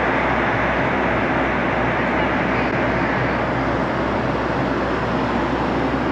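Steady cabin roar of a Boeing 757-200 in flight, engine and airflow noise heard inside the passenger cabin.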